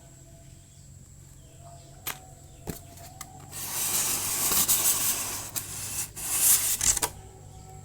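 Two light clicks, then from about three and a half seconds in a few seconds of loud rustling and crinkling as packaging is handled.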